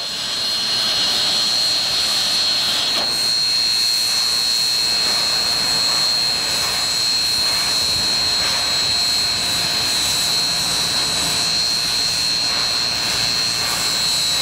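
Union Pacific 844 steam locomotive standing with steam up: a steady hiss of escaping steam with a high, steady whine over it.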